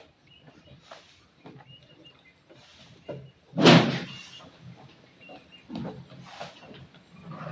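Penned farm livestock, goats and rams, making short calls and moving about. One much louder, brief sound comes about three and a half seconds in.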